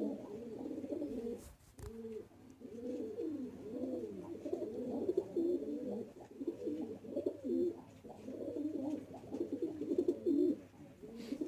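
Domestic pigeons cooing: one low warbling coo after another, with a short break about two seconds in.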